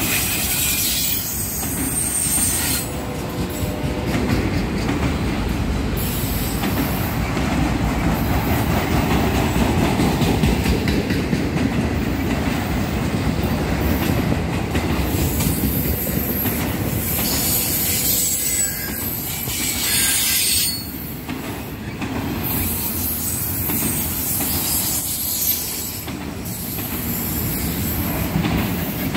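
Norfolk Southern freight train's autorack cars passing close at speed: a steady rumble and clatter of steel wheels on the rail, with high-pitched wheel squeal that comes and goes, strongest near the start and again about two-thirds of the way through.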